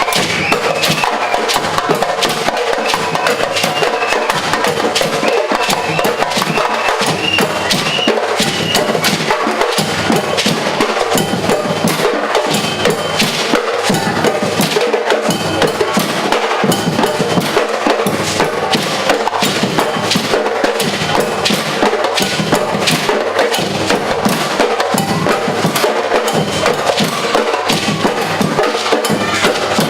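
Live percussion ensemble, a batucada-style drum group, playing a fast, steady groove: a low drum pulse under dense, sharp strikes on drums and woodblock-like instruments.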